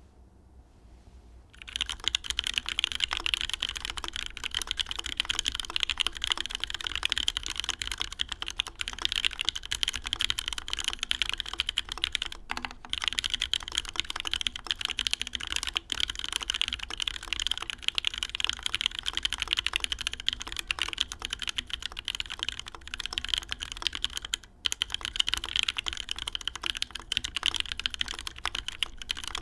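Continuous fast typing on a Merisi Works Dodici custom mechanical keyboard with OP Black switches, GMK keycaps and an aluminium top-mount plate. The typing starts about a second and a half in and pauses briefly twice.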